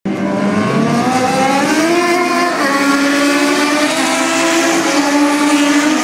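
Historic Formula 1 race car engines running at high revs, one rising in pitch as it accelerates over the first two seconds, then holding high and nearly steady.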